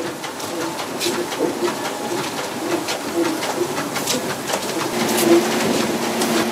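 A MinkMaster 1100 EL electric mink-feeding cart running as it moves along the cages laying out feed, with many sharp clicks and a string of short low tones at about two to three a second. A steady hum comes in about five seconds in.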